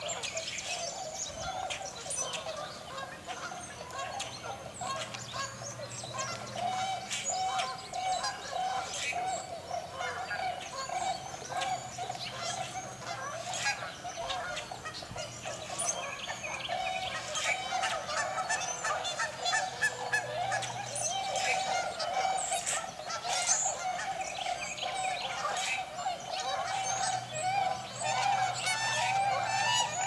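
A large flock of waterfowl, tundra swans and Canada geese, calling without a break: many overlapping honks and hoots blending into one steady chorus, with sharper chirps and squeaks of smaller birds over it.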